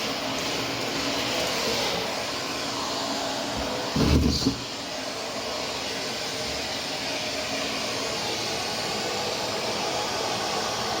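Vacuum cleaner running steadily on a floor mat, with one short thump about four seconds in.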